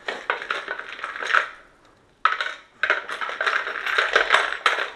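Loose metal hex-head screws rattling and clinking in a small clear plastic parts box as hands rummage through it, with a brief pause a little before halfway and a sharp clatter when the handling resumes.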